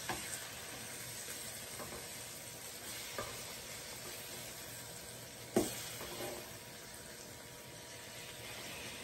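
Chicken breast pieces sizzling as they sear in hot oil in a nonstick skillet. Tongs knock against the pan three times as the pieces are turned, the loudest knock just past halfway.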